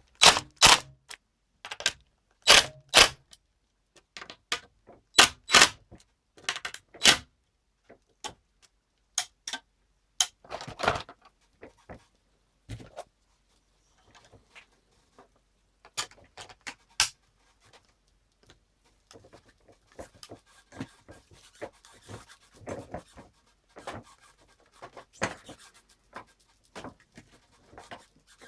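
Sharp clicks and knocks of small hard parts being handled while a binding plate is screwed onto a cross-country ski. The clicks come thick and loud through the first dozen seconds, then turn fainter and more scattered, with light scraping.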